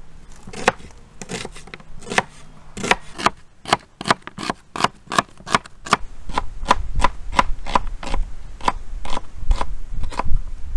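Knife slicing an onion into half-rings, a series of crisp cuts, uneven at first and then a steady run of about three cuts a second.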